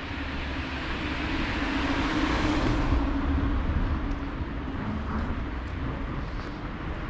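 Road traffic noise on a town street: a passing vehicle's sound swells to a peak about three seconds in and then fades, over a steady low rumble.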